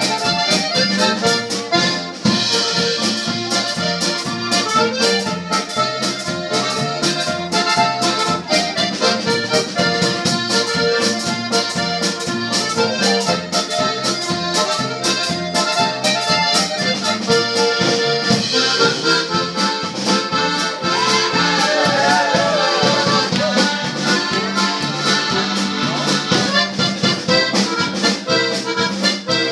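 A Slovenian-style polka played live on a diatonic button box accordion, with a piano accordion playing alongside, in a steady bouncing rhythm.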